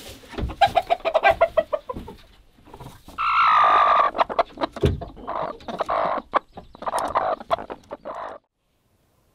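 Roosting chickens clucking and squawking, with one long, loud call about three seconds in. The calls cut off suddenly just before the end.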